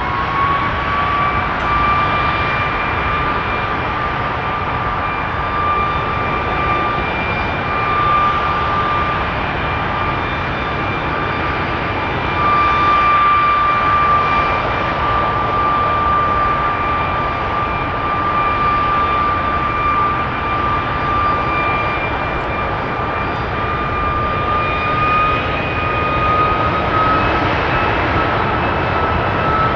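Boeing 757-200 freighter's jet engine running at a steady power setting during a ground engine test: a loud, steady rush with a high whine, whose pitch rises slightly right at the start and again about 25 seconds in.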